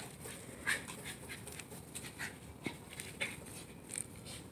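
Faint, irregular short puffs from a Shiba Inu panting as it runs about on the grass.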